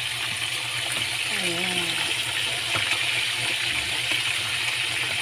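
Fish frying in hot oil, a steady sizzle with a few faint crackles.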